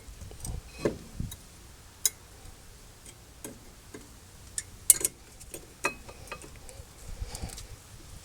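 Scattered sharp clicks and light taps of brake parts being handled during a front brake pad job, irregular and spaced a second or so apart, the loudest about five seconds in.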